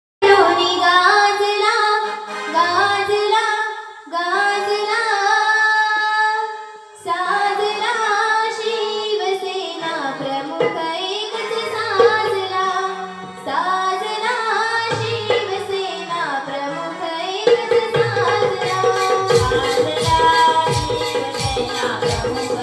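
A young girl singing a devotional folk song through a microphone and PA, with hand-drum accompaniment. About 18 seconds in, a steady, even beat sets in under the voice.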